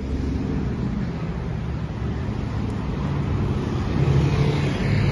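A car engine running with a low, steady note amid street traffic, growing louder toward the end.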